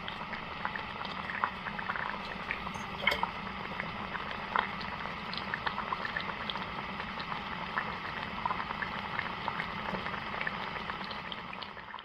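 Pot of tomato, pepper and feta sauce simmering, with a steady hiss and many small irregular pops and bubbles.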